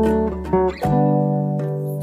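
Background instrumental music: a melody of held notes that changes pitch a few times.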